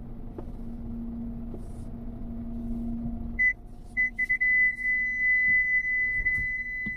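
A car's parking-sensor beeper sounds two short high beeps about halfway through, then holds a continuous tone, the sign of an obstacle very close behind while manoeuvring. Under it is the low rumble of the car running, heard inside the cabin.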